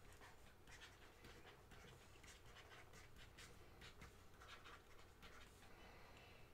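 Faint scratching and tapping of a stylus writing on a tablet screen, in short irregular strokes.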